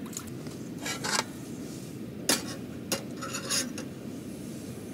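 Camp cookware being handled: a few light clicks and clinks, with short scraping and rustling noises between them.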